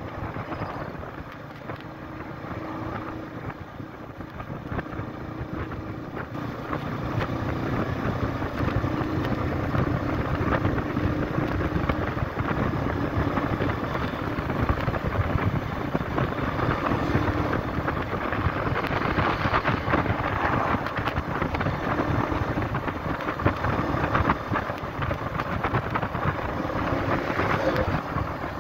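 Motorcycle riding along the road: the small engine running steadily under wind rushing over the microphone, growing louder about seven seconds in.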